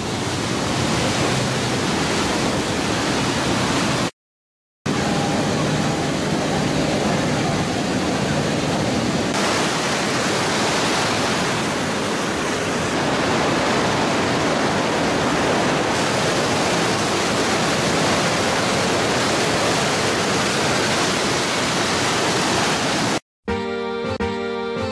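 Rhine Falls: the steady rush of a large waterfall and churning white water, heard close up from a boat on the river. It cuts out briefly about four seconds in, and music takes over near the end.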